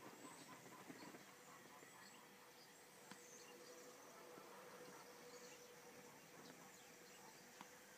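Near silence: faint outdoor ambience with a faint steady hum that comes in about a second in, and a few small ticks.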